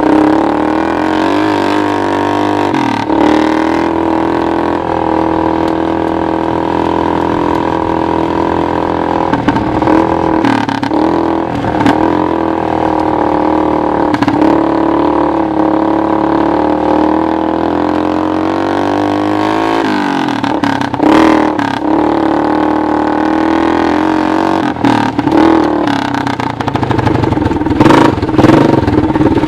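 Honda TRX200SX ATV's single-cylinder four-stroke engine driving the converted golf cart, its pitch dropping and climbing again several times as the throttle is eased and opened. Knocks and rattles come in over the last third.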